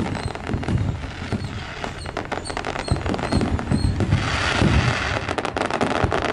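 A string of firecrackers going off: many sharp pops and cracks in rapid, irregular succession.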